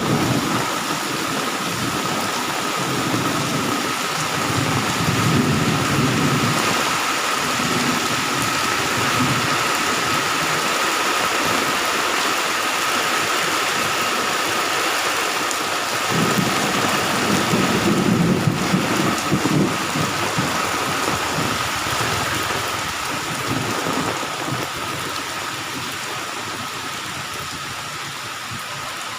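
Heavy tropical rain pouring steadily, with thunder rumbling low in long rolls at the start and again in the middle, the rumbling dying away near the end.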